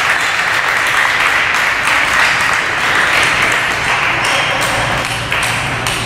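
Table tennis ball in play, sharp clicks off bats and table that come thicker in the last couple of seconds, over a steady noisy hall background.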